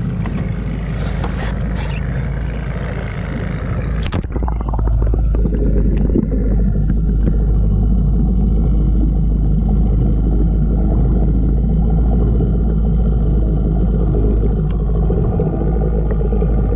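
Open-air rushing noise over lake water, then a splash about four seconds in as the camera goes under the surface. From then on the sound is muffled to a steady low underwater rumble.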